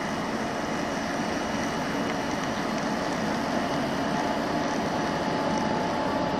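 Recording of a real British Rail Class 71 electric locomotive running: a steady train noise at an even level, with a constant hum of fixed tones and no whistle.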